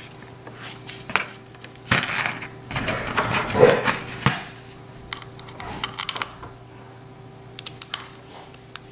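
A small screwdriver driving the screw into a plastic inline lamp-cord switch housing, with scattered clicks and scraping handling of the plastic switch and cord. There is a longer rustling scrape a couple of seconds in and a few quick ticks near the end.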